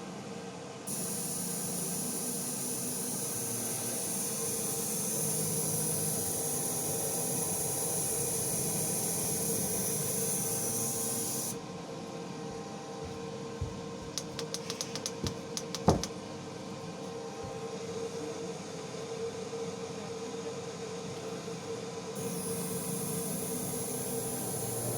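K40 CO2 laser cutter making a strange noise and not working: a steady hum, with a high hiss that cuts in about a second in, stops about halfway and comes back near the end. A quick run of sharp clicks comes just past the middle.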